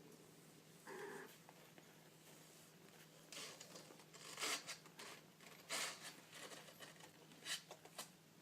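A string of short rustling, scratching scrapes over a faint steady hum, following a brief muffled sound about a second in.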